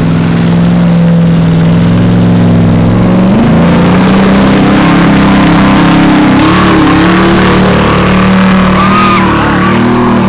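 Pickup truck's engine revving hard while ploughing through deep mud, very loud and close. The pitch steps up about three seconds in and stays high.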